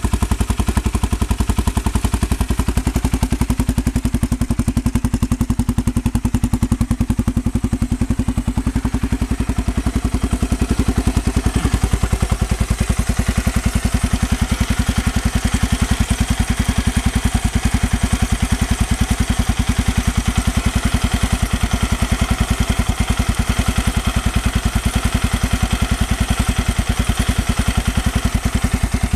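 Gilera Saturno's single-cylinder engine idling steadily with an even, rapid beat and a clattering edge, recorded because the owner hears an abnormal noise (異音) in it. A steady hum under the idle stops about twelve seconds in.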